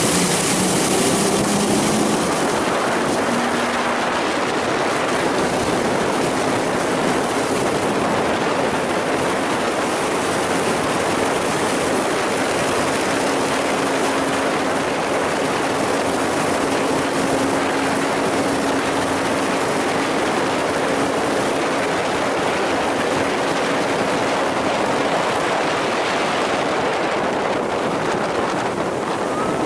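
2002 Malibu ski boat's LS1 V8 running at a steady towing speed: a steady engine drone under a broad rush of wind and water spray.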